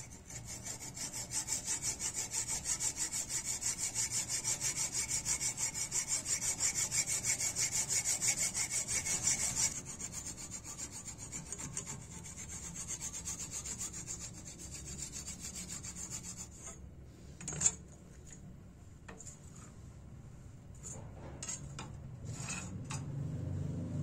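Hacksaw cutting through a piece of horn clamped in a steel bench vise, in quick, even back-and-forth strokes, loud at first and softer after about ten seconds. The sawing stops about two-thirds of the way in, followed by a few clicks and one sharp knock.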